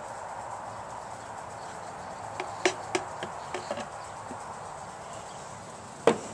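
Plastic motor-oil bottle and plastic funnel being handled while oil is topped up: a few light clicks and knocks a couple of seconds in, then one sharper knock near the end, over a steady background hum.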